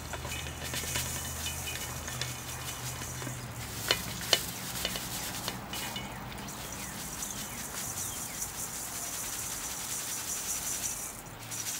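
Dry arugula seed pods and chaff rubbed by hand in a plastic colander: a dense crackling rustle as the seed is sifted through the mesh, with two sharp clicks around four seconds in.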